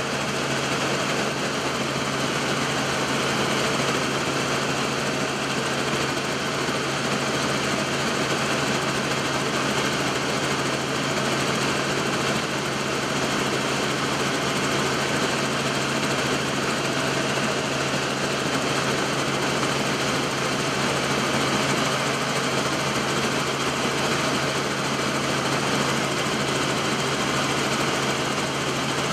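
Helicopter in steady flight heard from on board: a constant engine and rotor drone with a strong low hum, unchanging throughout.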